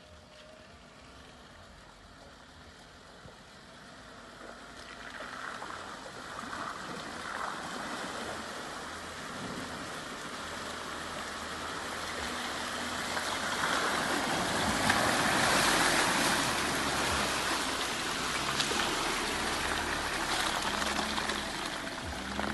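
Jeep Wrangler driving through deep puddles, water rushing and splashing against the vehicle over the low hum of its engine. The splashing grows louder over the first half and is heaviest about 14 to 17 seconds in.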